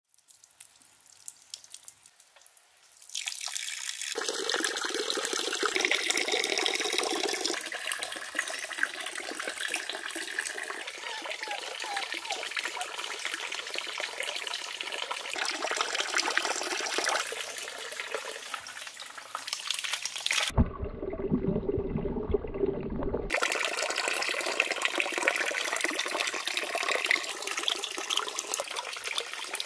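Water running and splashing in a small garden fish pond and its channel, a steady rushing sound. It is faint for the first few seconds, breaks off suddenly about two-thirds of the way through for a few seconds of muffled low sound, then comes back.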